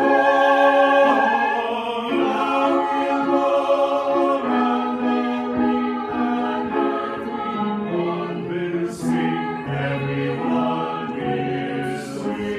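Choir singing in parts, holding chords that change every half second or so, with sung hissing consonants about nine and twelve seconds in.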